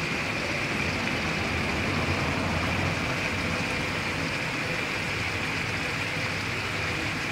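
Onions, ginger, garlic and chili paste frying in oil in a large aluminium wok: a steady sizzle.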